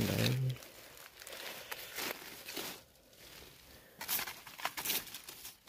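Dry sugarcane leaves rustling and crackling in short bursts as a gloved hand pushes them aside, busiest in the last second and a half.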